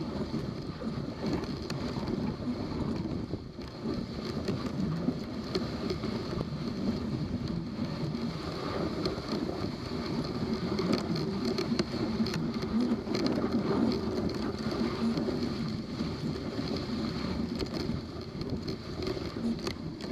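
Dog sled gliding along a packed snow trail: a steady rushing hiss and scrape of the runners on the snow, mixed with wind on the microphone.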